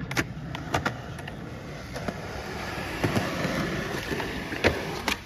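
Skateboard wheels rolling over concrete, with several sharp clacks of the board hitting the ground, the loudest near the end.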